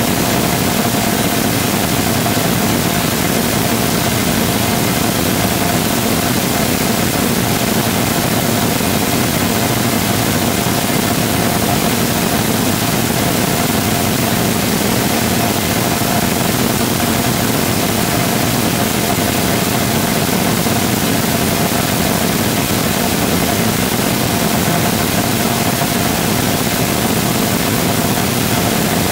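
Full-scale 3D-printed rotating detonation rocket engine combustor firing: a loud, steady rushing noise with a single steady tone running through it, unchanging throughout.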